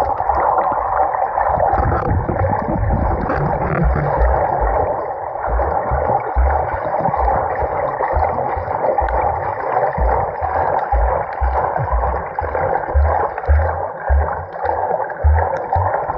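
Muffled, steady rushing of shallow seawater heard underwater, with irregular low thuds that come more often in the second half.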